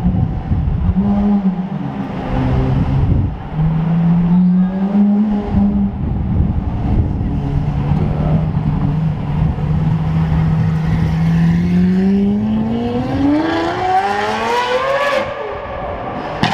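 Lamborghini Aventador SVJ's V12 breathing through a Gintani exhaust, rolling by at low revs with a steady drone. About three-quarters of the way in it accelerates hard in a long rising wail, then drops off just before the end.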